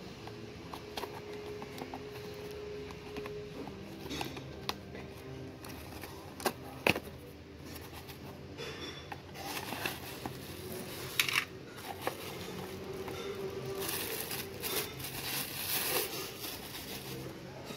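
Cardboard box being handled and its flaps opened, with scattered sharp taps and clicks, then plastic wrapping crinkling near the end as the car mount's parts are taken out.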